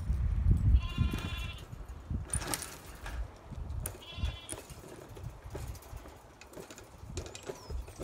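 Sheep bleating: two short, wavering bleats, the first about a second in and the second about four seconds in. Under them are a low rumble, loudest at the start, and scattered small clicks from the flock.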